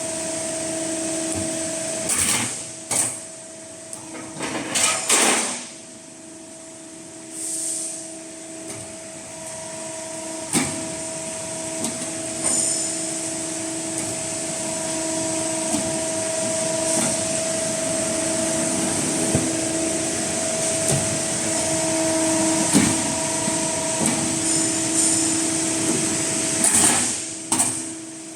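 Metal roofing tile roll-forming machine running: a steady motor hum, broken by sharp knocks every few seconds, with the hum dropping out briefly a few seconds in.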